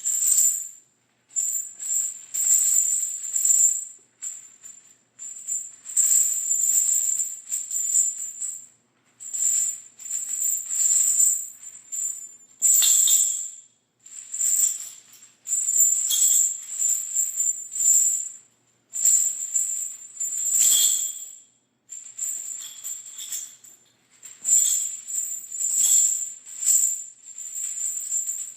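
Large metal chains rattling and jangling as they are shaken, dragged and dropped, in repeated bursts of a second or two with short silent gaps between.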